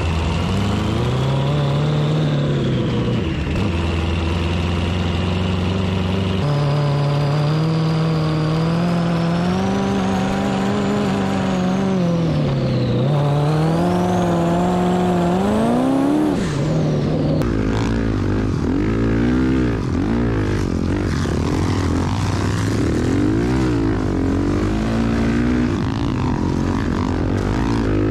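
Off-road vehicle engines revving hard, the pitch rising and falling as they accelerate and shift, with abrupt jumps about a quarter of the way in and just past halfway where the sound switches to another engine. In the last part, a Honda CRF450R single-cylinder dirt bike engine is running at speed.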